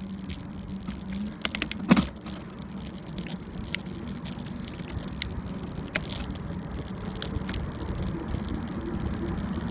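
Bicycle rolling along an asphalt road: a steady rumble of tyres and wind on the microphone, with rattling clicks from the bike and a sharp knock about two seconds in.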